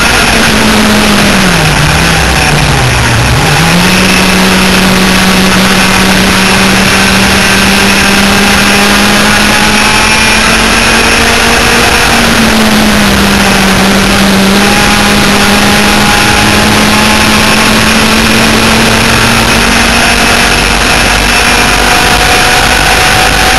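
The twin 100cc two-stroke engines of a B-Stock enduro laydown kart running hard at high revs, loud and close. About two seconds in the revs drop steeply and climb back within a couple of seconds, and they dip slightly again around twelve seconds.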